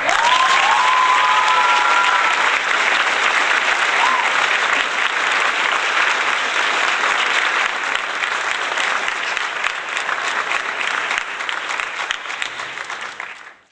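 Crowd applause: dense clapping that starts suddenly and dies away over the last few seconds, with a few high rising calls over it in the first couple of seconds.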